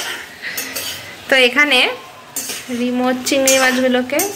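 Slotted metal spatula stirring prawns in a wok, clinking and scraping against the pan, with a few drawn-out squeaks along the way.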